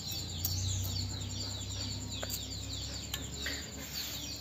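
Small birds chirping over and over in short, high, falling notes, over a low steady hum, with a couple of faint clicks in the middle.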